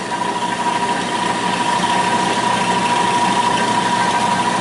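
Small milling machine running with an end mill facing off the rusty cast-iron top of a shallow-well pump body: a loud, steady machining whine with one strong high tone.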